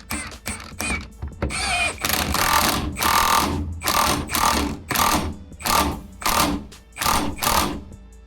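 A hand-held power tool triggered in short repeated bursts, about ten in a row at roughly two a second.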